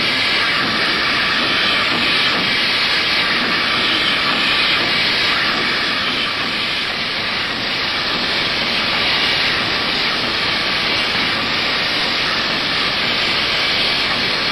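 Steady, loud rushing hiss of compressed air blowing through a sheet-metal air-conditioning duct from a duct-cleaning air whip on a hose, loosening dust and debris.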